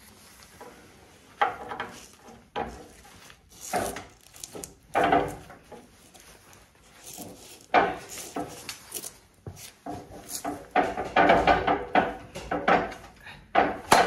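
Breaker bar and socket being wrenched against a seized, rusted snowplow cutting-edge bolt: irregular metal creaks, scrapes and clanks in bursts, busiest in the last few seconds.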